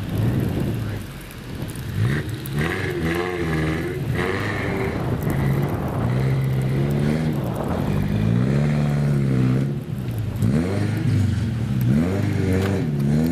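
A car engine revving up and falling back again and again as the driver tries to get the car moving in deep snow.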